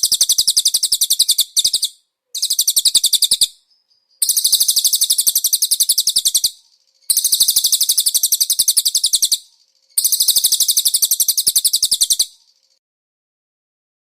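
Cililin bird song: phrases of rapid, high trilled notes, more than ten a second, each phrase lasting one to two and a half seconds. The phrases are separated by short pauses, and the song stops about two seconds before the end.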